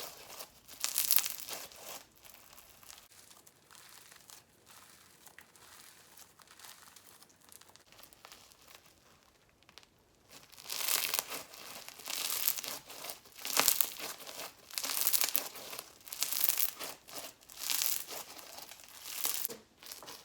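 Bingsu slime being squished and worked by hand, its plastic beads crunching and crackling, with small bubble pops. A short burst of crackling comes at the start, then a quiet spell of several seconds, then a run of crackly bursts about once a second.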